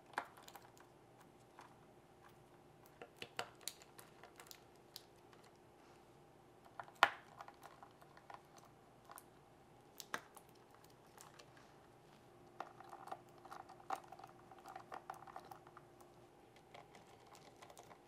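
Small motherboard screws being fitted and finger-tightened by hand: scattered light clicks and taps of metal on the board, with the loudest about seven seconds in.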